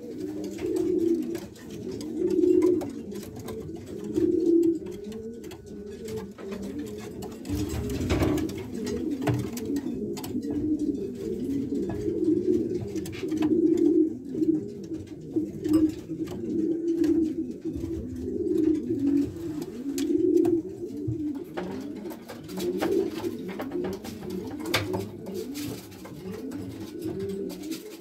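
Racing pigeons cooing over and over in their loft nest boxes, a run of low, pulsing calls, with a single thump about eight seconds in.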